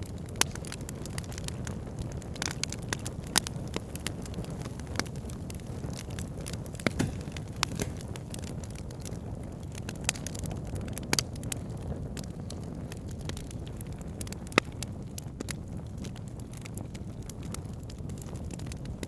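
Wood fire burning in a fireplace: a steady low rumble of the flames with irregular sharp crackles and pops, a few louder snaps among them.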